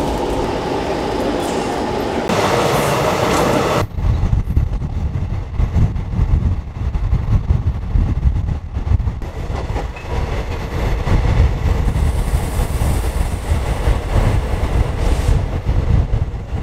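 Passenger train running along the line: a continuous rumble of the carriage on the rails. About four seconds in the sound changes abruptly to a heavier, uneven low rumble.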